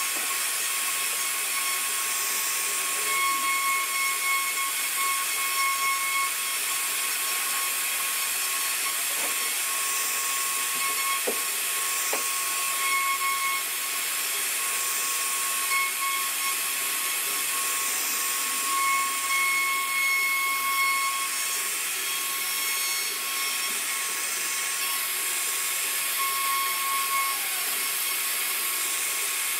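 CNC router spindle running at high speed, its carving bit cutting relief patterns into a wooden panel: a steady high-pitched whine over a hiss. The whine swells and fades at intervals as the bit works through the cut.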